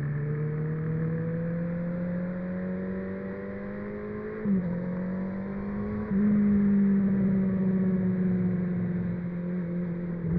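Honda CB650R's inline-four engine through an IXIL aftermarket exhaust, under way. The engine note climbs steadily, then a short blip and a drop in pitch about four and a half seconds in mark a gear change. It gets louder around six seconds in, then the pitch sinks slowly before dropping again near the end.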